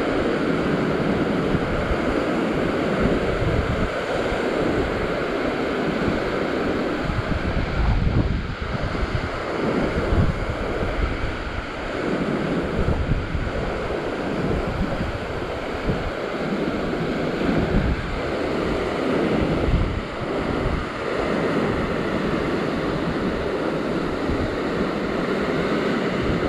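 Ocean swell breaking and washing over the rocks below, a continuous rush of surf that surges every few seconds, with wind buffeting the microphone.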